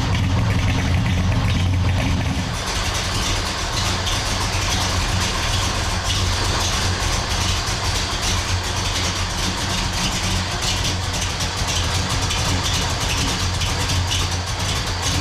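1967 Buick Special's engine, running on newly installed Holley Terminator electronic fuel injection, idling steadily.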